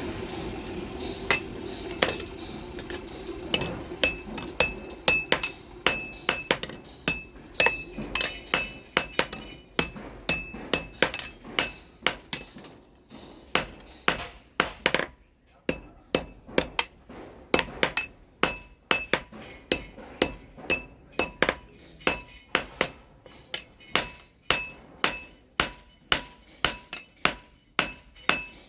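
Blacksmith's hammer striking the hot steel of a billhook blade on an anvil, about two blows a second, each blow ringing. The blows pause for a couple of seconds midway, then resume.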